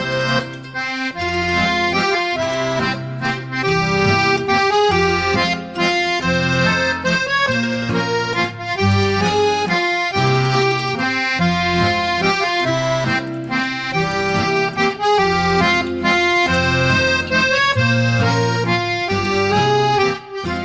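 Instrumental background music in a lively traditional style, with sustained chords over a moving bass line, beginning to fade out at the very end.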